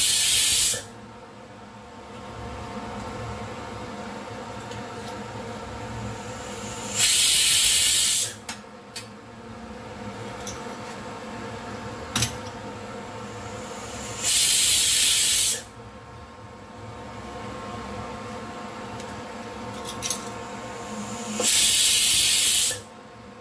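Pressure cooker on an induction cooktop venting steam through its valve in four loud hisses, each a little over a second long and about seven seconds apart, the sign that the cooker is at full pressure. A steady hum and a few light clicks fill the gaps between them.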